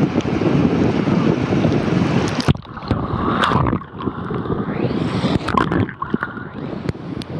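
Ocean surf and wind noise on a waterproof camera held at the water's surface. About two and a half seconds in, a wave washes over the camera and the sound turns muffled, with a few watery blips. Near the end it clears again as the camera comes back out of the water.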